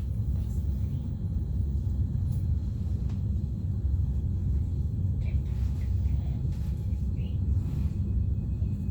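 Steady low rumble of a passenger train's running noise heard inside the carriage of an Italo train.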